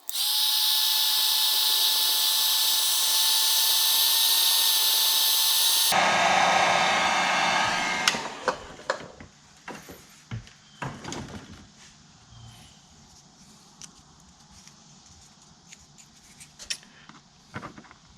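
Dremel 4200 rotary tool motor switched on and running with a steady high whine, being test-run after a heat-shrink fix to its intermittently failing power switch. About six seconds in the sound changes and winds down to a stop by about eight seconds, followed by light clicks and handling of the tool.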